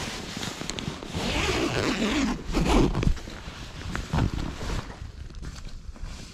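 Irregular rustling and scraping handling noises with a few sharp clicks, loudest around the middle.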